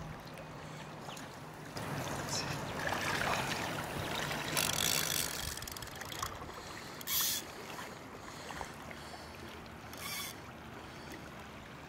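River water flowing steadily, with several brief, louder rushes of noise on top.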